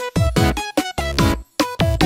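Electronic background music: short synth notes in a quick, even beat, about four a second, each with a falling bass note.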